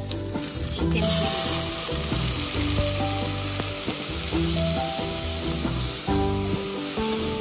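Chicken broth poured into a hot pot of sautéed squash, onion and garlic, sizzling and steaming as it hits the pan, the hiss swelling about a second in; a wooden spoon then stirs it.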